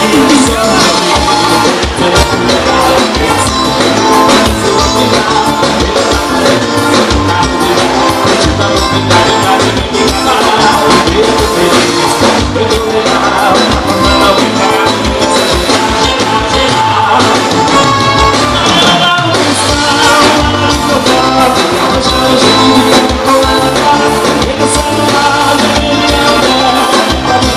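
Live dance band playing loudly: drums, electric guitar and a saxophone and brass section, with singers on vocals.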